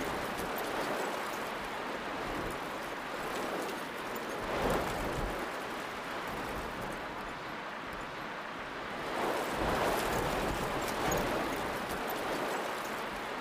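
Storm outdoors: heavy rain hissing steadily, with wind gusting and swelling a couple of times.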